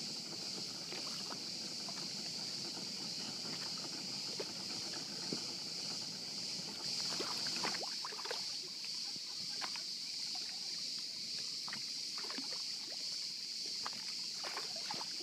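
Steady high-pitched buzz of cicadas, with small irregular splashes and lapping of water against a small boat.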